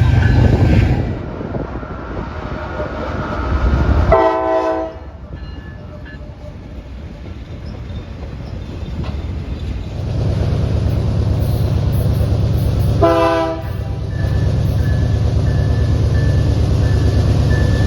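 Locomotive air horn sounding two short blasts about nine seconds apart, a crew's horn salute to a trackside watcher. The low rumble and clatter of the passing train grows about ten seconds in.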